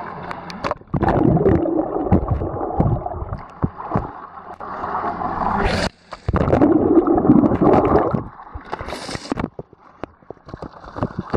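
Muddy water sloshing and gurgling around a handheld action camera as someone wades through a pool, in two loud surges with short hissing splashes. Knocks and rubbing from fingers handling the wet camera run through it.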